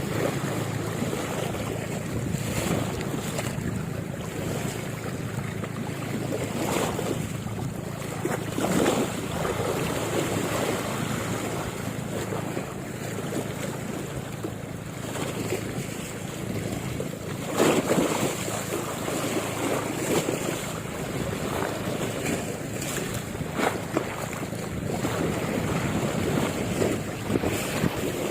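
Wind buffeting the microphone over the wash of water and waves, with a few brief louder bumps now and then.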